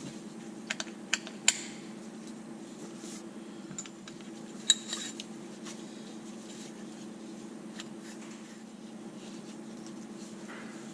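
Small steel parts of a Detroit 3-53 fuel control rack clicking and clinking as they are handled and fitted: a few light clicks in the first second and a half and a sharper one a little before the middle. A steady low hum runs underneath.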